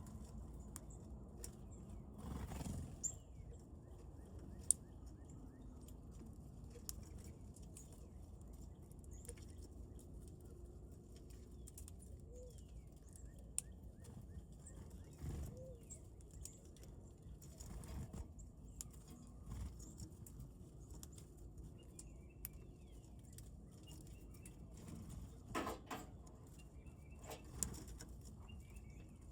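Birds at a feeder: a few short flutters and sharp knocks scattered through, and faint high chirps near the end, over a low steady outdoor rumble.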